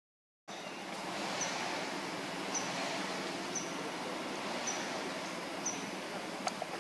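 Outdoor forest ambience: an even hiss with a short, high chirp repeated about once a second, five times, from a bird or insect. It starts after about half a second of dead silence and cuts off just before the end.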